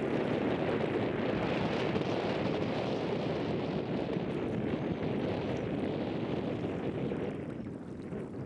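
Steady rushing of wind buffeting the camera microphone, easing near the end.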